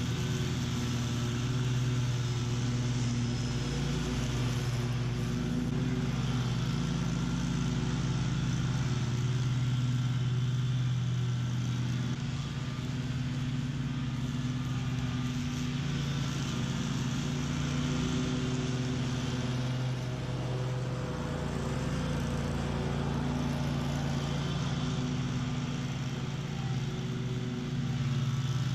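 Bob-Cat QuickCat 36-inch stand-on commercial mower running at mowing speed, its engine and blades running steadily as it cuts tall, thick weeds, the load rising and easing a little as it works through them.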